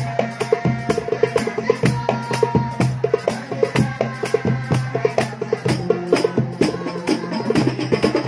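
Hadrah hand-drum ensemble, a darbuka and large rebana frame drums struck by hand, playing a fast, even rhythm of about five strokes a second.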